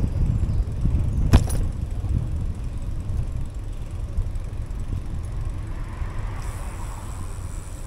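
Low rumble of wind on the microphone and road noise while riding a bicycle along a city street, with one sharp click about a second in.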